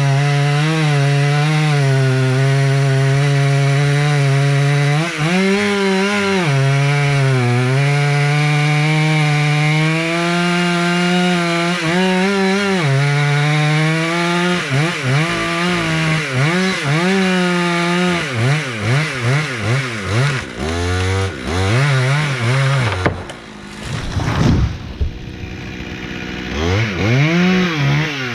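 Two-stroke chainsaw running hard at high revs, its pitch dipping briefly now and then, then revved up and down in a quick series of blips through the second half, with a drop and a final rise and fall near the end.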